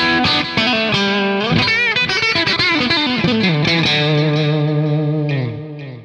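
Stratocaster-style electric guitar with blade-style copies of DiMarzio Cruiser pickups, played with a distorted tone. A fast lead run has a vibrato note about two seconds in, then steps down to a low note that rings and fades out near the end.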